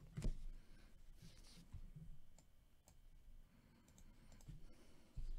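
A few faint, scattered clicks and light knocks against quiet room tone.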